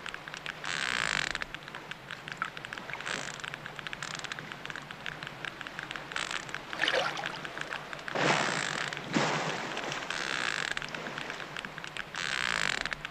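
Underwater hydrophone recording of a baby sperm whale: a constant rapid clicking, its echolocation clicks. About seven seconds in there is a short wavering growl, the calf's cry, and bursts of rushing noise come and go every few seconds.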